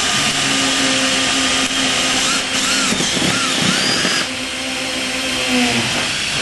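Power drill running a 3/8-inch bit through a metal van roof, enlarging a pilot hole to full size. The motor hums steadily, with a few brief squeaks from the bit in the metal partway through, and it stops near the end.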